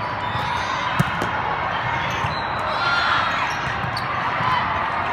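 Indoor gym ambience during a volleyball match: a steady murmur of spectators and players, with one sharp smack of a ball being hit about a second in and a few short squeaky chirps.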